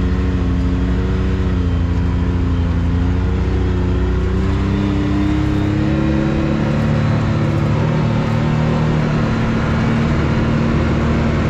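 Can-Am X3 side-by-side engine running under way, heard from inside the cab, its revs rising and falling gently as it is driven along a dirt trail.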